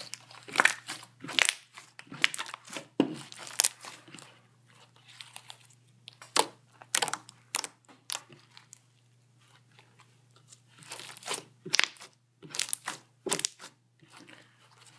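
Thick blue borax glitter slime being kneaded, pressed and stretched by hand, giving irregular sharp pops and crackles as air pockets burst, with a quieter stretch about eight seconds in.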